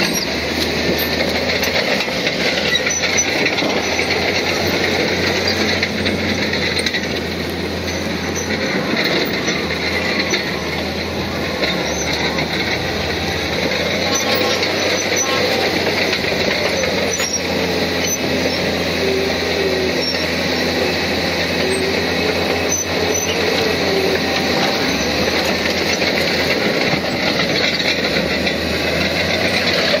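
Crawler bulldozer working: steady engine and track noise, with a wavering high squeal in the middle stretch.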